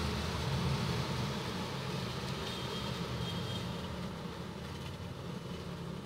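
Freezer humming steadily with a low, even drone, fading a little near the end.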